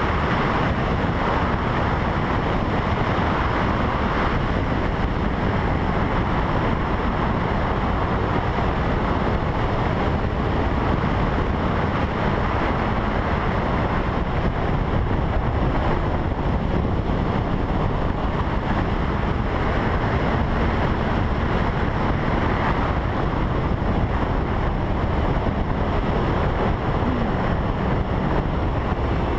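Heavy wind noise rushing over a helmet camera's microphone as a Honda CBR1000RR is ridden hard around a track. The bike's inline-four engine is faintly heard beneath it, with a short change in pitch near the end.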